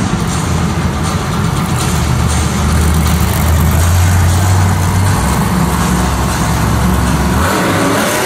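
Monster truck's supercharged V8 engine running loud under throttle as the truck drives across the arena dirt. The low engine rumble drops off about seven seconds in.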